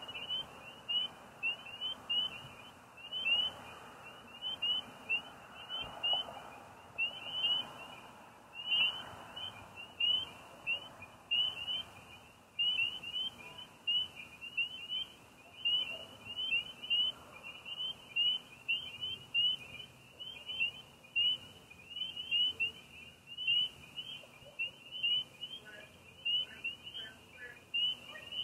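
Night chorus of crickets and frogs: short, high chirps repeating several times a second without a break.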